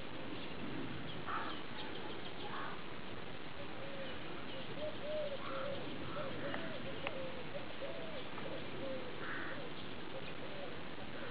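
Steady outdoor background hiss with a faint, wavering animal call that rises and falls several times through the middle, and a few short chirps.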